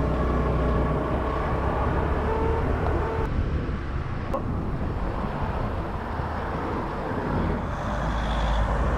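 Motor scooter riding on a road, heard from on board: a steady low engine and road rumble with wind noise, and a faint engine tone in the first few seconds.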